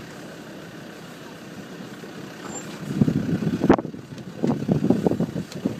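Off-road vehicle crawling along a rough sand track: a steady low running noise, then from about three seconds in irregular loud rumbles and jolts, with one sharp knock just before four seconds.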